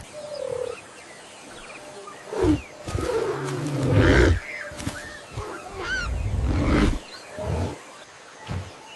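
Wild animal growls and roars, several separate calls with low rumbling, from a large animal such as a big cat.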